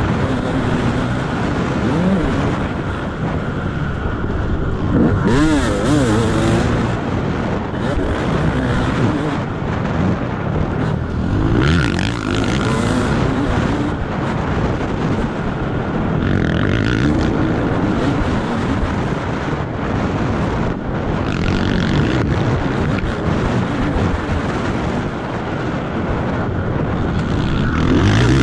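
Dirt bike engine at racing speed on a motocross track, its pitch climbing and dropping over and over as the rider works the throttle and gears, with wind hissing over the helmet-mounted camera.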